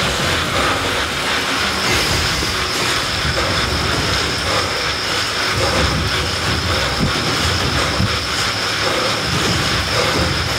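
Indoor bike trainer and drivetrain running under hard pedalling near 340 watts: a steady whirring rumble, with a thin high whine that comes in about a second and a half in.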